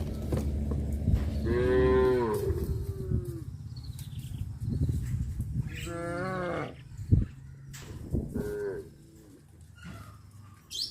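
Cattle mooing: three separate calls, about a second and a half in, at six seconds and at eight seconds. A sharp knock comes shortly after the second call.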